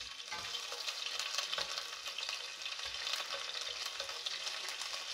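Garlic sizzling steadily in hot oil in a nonstick frying pan, with light scrapes and ticks of a knife blade spreading it around the pan.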